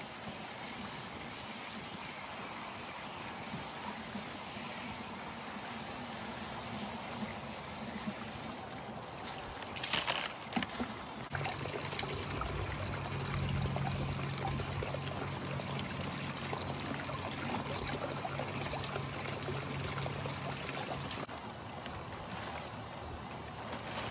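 Water pouring and running steadily through a hose-fed gold-separating rig and its discharge pipe. About ten seconds in there is a brief clatter, and then a low steady hum runs alongside the water for about ten seconds.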